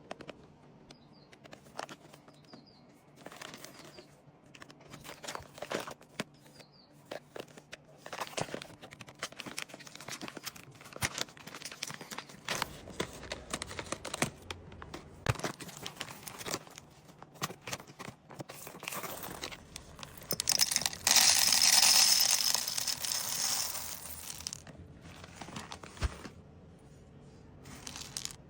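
Packaging being handled and opened: crinkling, crackling plastic or foil wrapping with scattered clicks, and a louder stretch of tearing or rustling about two-thirds of the way through.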